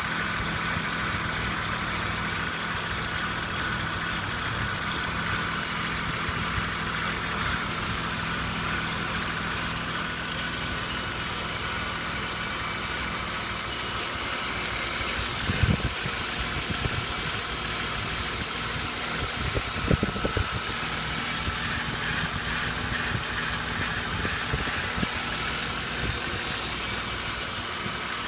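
BMW E36's M50B25 2.5-litre straight-six running steadily, with a continuous high-pitched squeal that flutters rapidly. The owner takes it for a failing pulley or roller in the belt drive.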